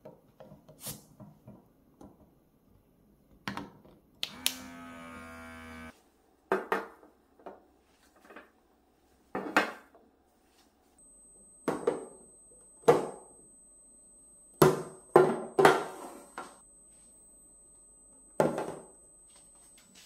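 Vacuen plastic vacuum food-storage containers handled and set down on a stone countertop: about a dozen sharp plastic knocks and clicks at irregular intervals, with a brief steady tone lasting about a second and a half around four seconds in.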